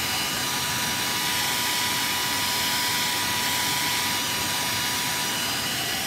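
Handheld electric hair dryer running steadily, blowing air at close range: an even whoosh with a faint steady whine.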